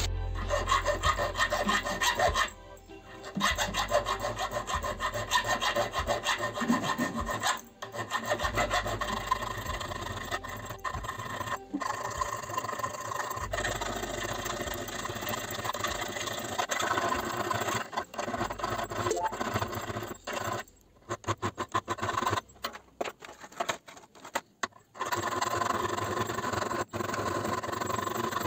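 Narrow hand file rasping in quick back-and-forth strokes on the edge of a steel knife blank, with a few short pauses.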